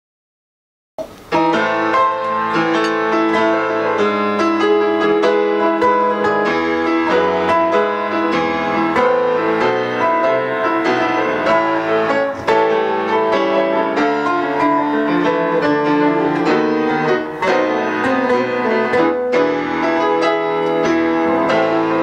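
Instrumental introduction of a chanson, played on piano, with no singing yet. It starts suddenly about a second in, after silence.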